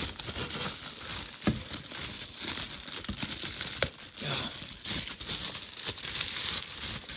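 Package wrapping being crinkled and pulled open by hand: irregular crackling and rustling with a few sharp clicks.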